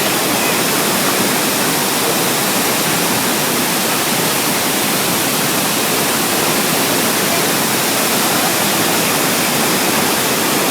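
Iguazu Falls roaring: a loud, steady rush of falling water that does not let up.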